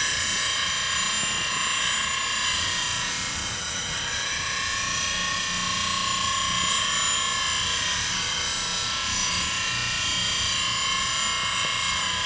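Bench grinder running with an 80-grit CBN wheel while the side of a metal bowl gouge is ground freehand against it: a steady, high-pitched grinding noise with a constant whine, shaping the gouge's swept-back grind.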